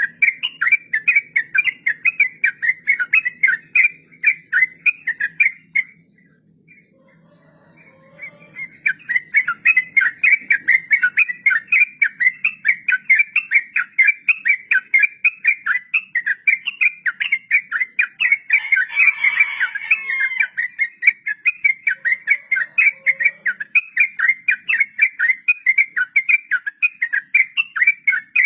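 Yellow-vented bulbul (trucuk) singing a long ropel: a fast, unbroken run of repeated whistled notes. It pauses about six seconds in and picks up again about two seconds later.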